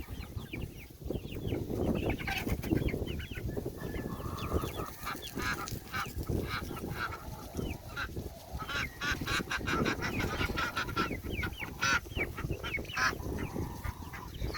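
A mixed flock of chickens and ducks calling, many short overlapping clucks and honking quacks.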